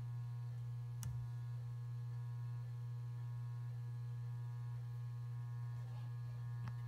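Steady electrical mains hum from a traffic signal controller cabinet, with faint steady whining tones above it. A single sharp tap sounds about a second in, and a fainter one near the end.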